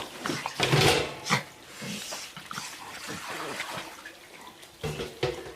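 A dog making short vocal sounds, loudest about a second in, with a few quieter ones later.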